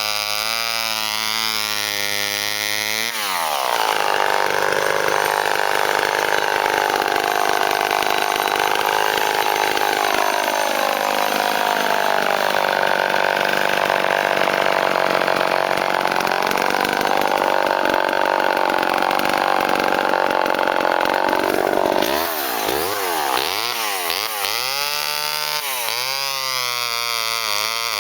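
Vintage Homelite two-stroke chainsaw idling, then opened up to full throttle about three seconds in. It holds high revs for nearly twenty seconds, its pitch sagging and recovering as it is loaded in a cut through wood. It then drops back to idle, with a few short throttle blips near the end.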